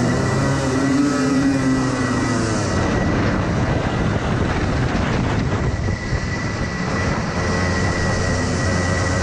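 Onboard sound of a DMAX racing kart's two-stroke engine at race pace, its pitch rising and falling as it accelerates and lifts through corners and down the straight, with wind on the microphone and other karts' engines close by. A steady thin high whine runs under it.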